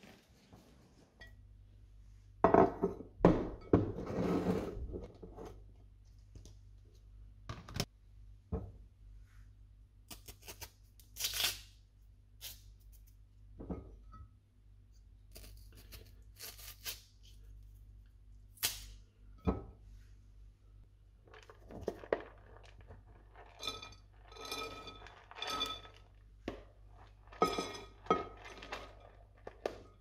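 Scattered knocks and thumps of objects being handled, with a cluster of ringing clinks of glass baking dishes on a kitchen counter in the last third, over a low steady hum.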